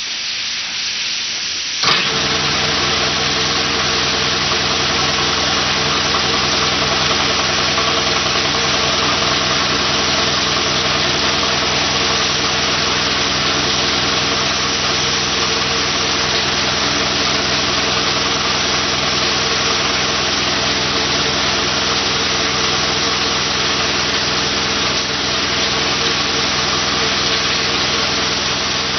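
Gravity-feed paint spray gun hissing steadily as it sprays a medium-to-heavy coat on a car door. About two seconds in, a motor starts with a short click and keeps running with a steady hum under the hiss.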